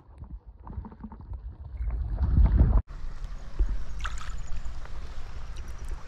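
Wind buffeting the microphone: a low, irregular, gusting rumble that cuts off abruptly a little under three seconds in, then resumes.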